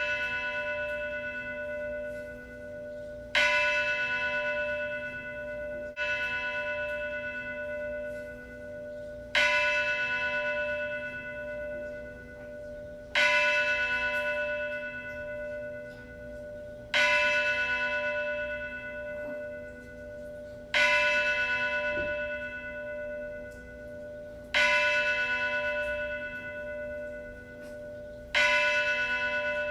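A church bell tolling slowly, struck about every three to four seconds, each stroke ringing out and fading while a low hum carries on between strokes.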